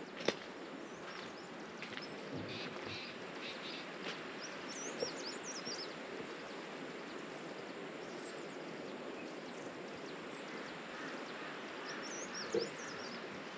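Outdoor ambience: a steady, even hiss with a few short, high bird chirps, a cluster about five seconds in and another near the end.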